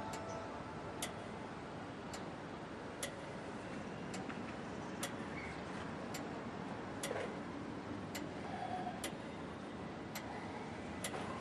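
A clock ticking steadily, about one tick a second, over a faint hiss.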